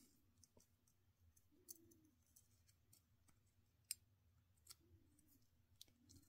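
Faint, scattered clicks and small snaps of side cutters biting and bending the thin aluminium can of a capacitor as it is peeled open, the sharpest one about four seconds in; otherwise near silence.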